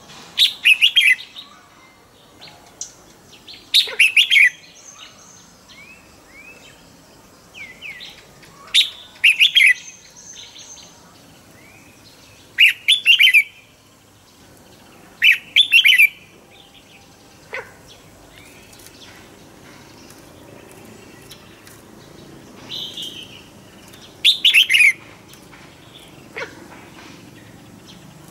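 Red-whiskered bulbul singing its morning song as a lure bird: about six loud, short phrases a few seconds apart, with softer chirps between.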